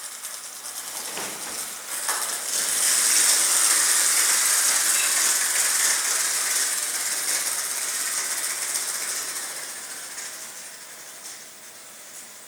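Clockwork motor of a wind-up toy mouse whirring as it runs, coming in about two seconds in and slowly fading as the spring runs down.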